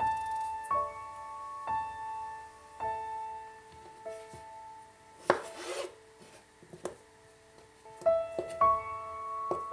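Soft background piano music, note by note. Under it there is a brief scraping rub about halfway through, and near the end a few knife knocks on a cutting board as raw potatoes are cut into chunks.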